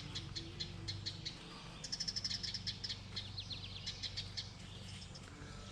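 Small songbirds at a birdhouse chirping rapidly and repeatedly, with a quick flurry of chirps about two seconds in and a short falling run of notes a second later; the birds are feeding their nestlings. A faint steady low hum lies underneath.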